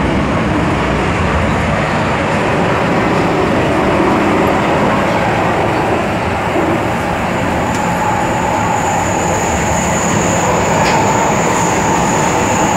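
MTR M-Train electric multiple unit running, heard from inside the passenger car: a steady, loud rumble of wheels and running gear. About eight seconds in, a high-pitched steady whine comes in and holds.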